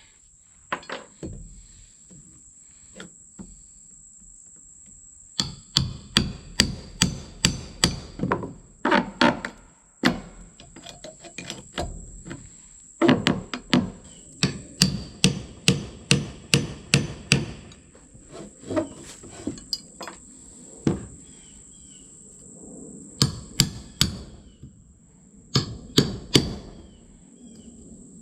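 Hammer blows on wooden porch boards, in runs of quick strikes about three a second with short pauses between runs, as the weathered boards are knocked loose to be torn out. A steady high insect whine runs underneath.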